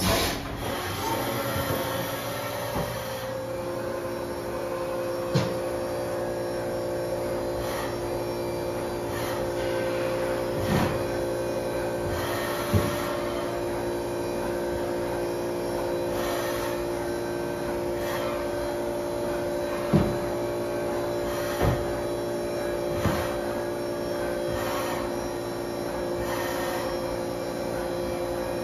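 Haas VF-6/40 CNC vertical machining center running under power, a steady machine whine with two held tones over a hum, while its table traverses. A few short sharp knocks stand out now and then.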